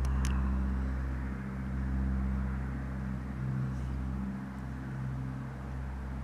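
A steady low droning hum of a few stacked pitches under a soft hiss, with one brief click just after the start.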